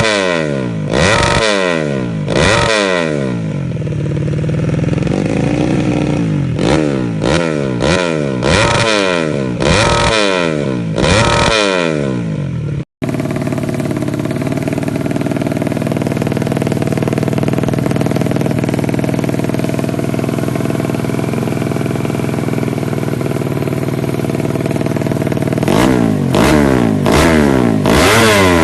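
Yamaha Jupiter Z's single-cylinder four-stroke motorcycle engine being revved in repeated short blips, each rising and falling in pitch about once a second. About halfway through, after a cut, it runs steadily, and it starts revving in blips again near the end.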